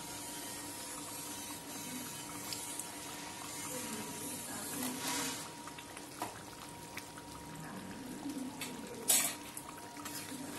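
Chicken curry boiling in a pan, a steady bubbling with scattered small pops and clicks. A short louder rustling burst comes about nine seconds in.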